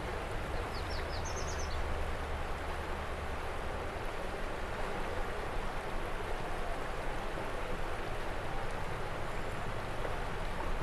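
The Animas River rushing over rocks and shallow rapids, a steady wash of water. A few short, high chirps come about a second in.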